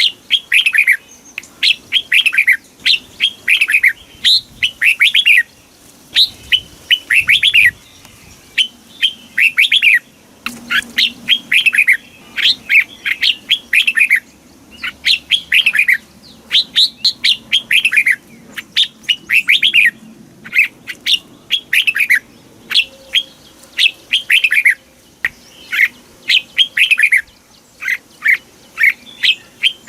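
Red-whiskered bulbul song: quick runs of short, clear whistled notes, each falling in pitch, repeated phrase after phrase with only brief pauses.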